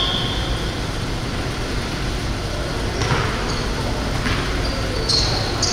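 Steady rumbling background noise of a basketball gym during play, with a couple of thumps in the middle. A few short high squeaks near the end are typical of sneakers on the court.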